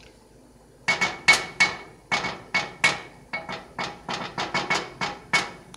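A wooden spoon knocking against the side of a metal cooking pot: about twenty quick, sharp knocks at roughly four a second, starting about a second in, each with a short metallic ring.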